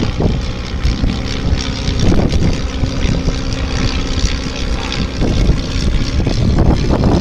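Piston engines and propellers of an Auster AOP6 and a Taylorcraft Plus D flying past together overhead, a steady drone.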